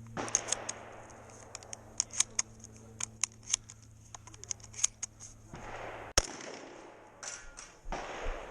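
A run of sharp clicks and light knocks, several a second, then one loud shotgun shot about six seconds in.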